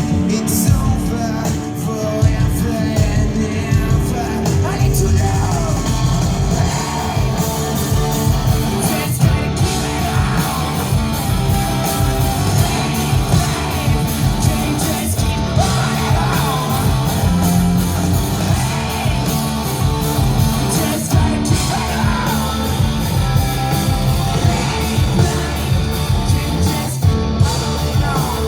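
Live rock band playing at full volume: electric guitars, bass and drum kit, with a singer's voice over the top.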